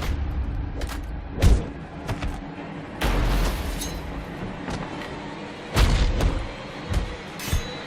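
Action-film soundtrack: a run of heavy booms and thuds over a music bed, about five hits in all.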